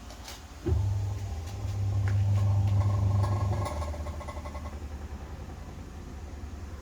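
Top-load washing machine's motor starting suddenly about a second in with a loud, low hum, easing off about three seconds later and running on more quietly: the noise the second-hand machine makes when washing.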